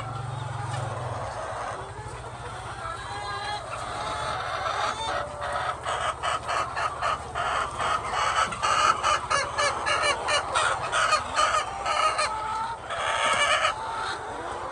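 A flock of chickens clucking and calling, with rapid repeated clucks growing denser and louder through the middle and a loud burst of calls near the end. A low steady hum runs underneath and fades out about three-quarters of the way through.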